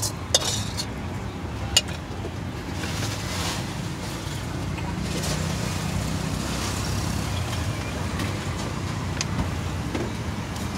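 Steady low rumble of street traffic, with two sharp metal clinks of a spatula against a steel wok, about half a second and nearly two seconds in.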